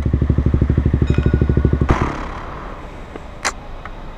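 KTM Duke 125's single-cylinder engine with an Akrapovic exhaust idling with a steady, even beat. About two seconds in the engine note drops away, leaving a quieter hiss and a single sharp click near the end.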